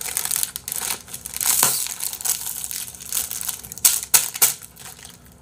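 Plastic ice-pop tube crinkling and crackling as it is squeezed and kneaded by hand, in a run of irregular short crackles that die down near the end.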